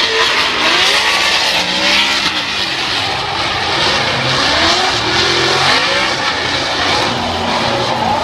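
Two drift cars sliding in tandem, their engines revving up and down through the slide over a steady hiss of spinning tyres.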